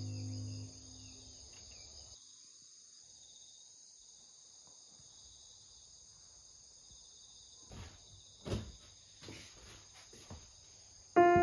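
Quiet room ambience: a faint, steady high-pitched hum runs throughout, and a few soft knocks and thumps come about two-thirds of the way in. The tail of background music cuts off at the very start.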